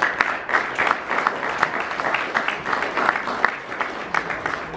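A small audience applauding, a dense patter of hand claps that thins out and dies away near the end.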